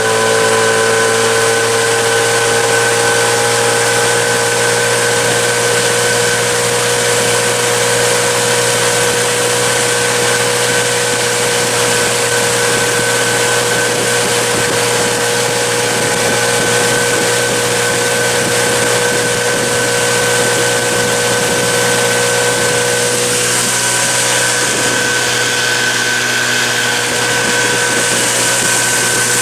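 Fishing boat's outboard motor running steadily under way. Its pitch rises slightly in the first few seconds, then holds, with a small dip near the end.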